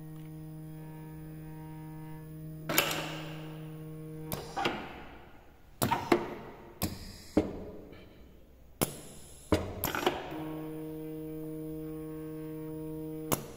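Pneumatic mechatronic training station running its cycle. A steady motor hum stops about four seconds in and returns near the end. In between come about nine sharp clacks of air cylinders and solenoid valves firing, some followed by a short hiss of exhaust air.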